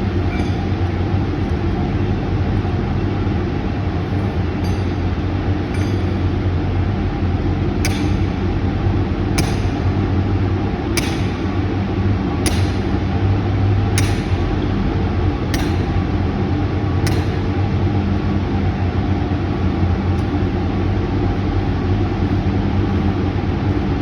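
Sledgehammer striking steel form pins for a concrete slab form: seven sharp metallic blows about a second and a half apart, each with a short ring. Over a steady low engine hum.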